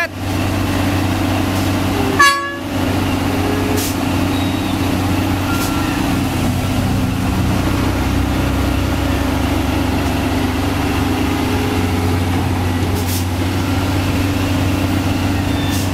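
Fuso self-loader truck's diesel engine idling steadily, with a brief, loud high-pitched tone about two seconds in.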